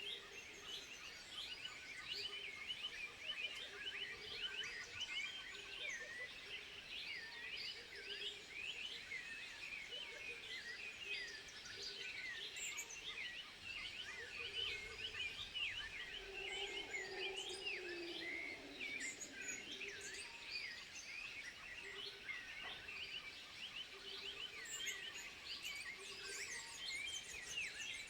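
Dense chorus of many high, quick chirping and twittering animal calls, with a lower call sliding down in pitch about two-thirds of the way through.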